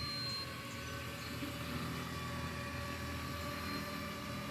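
3D-printed DIY quadcopter's motors and propellers whining steadily in flight: a held tone with a few higher overtones that wavers slightly in pitch.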